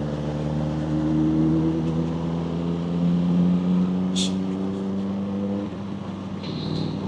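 Vehicle engine running steadily at low speed in slow traffic, a steady hum that cuts off about five and a half seconds in, with a brief high beep near the end.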